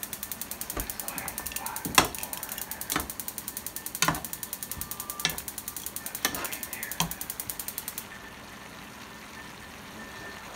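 Rapid, even clicking, several clicks a second, that stops abruptly about eight seconds in, typical of a gas stove's spark igniter, over a spatula knocking and scraping through stir-fried vegetables in a nonstick frying pan about once a second.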